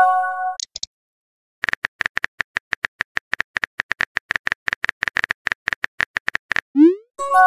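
Simulated phone-keyboard tap sounds from a texting-story app: a rapid run of clicks, several a second, as a message is typed. They come after a fading chord tone and a short pause. Near the end a quick rising swoosh and a chord tone mark the message being sent.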